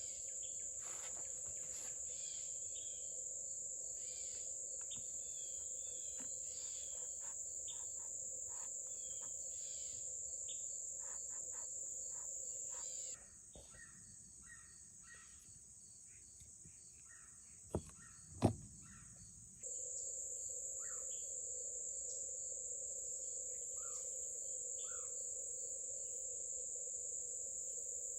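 A steady high insect drone with scattered short bird chirps. Near the middle the drone drops away for several seconds, and two sharp clicks sound about half a second apart before it returns.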